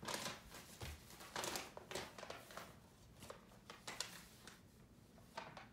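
Sheets of paper rustling and crinkling in short irregular bursts as a baby shakes and handles them, thinning out near the end.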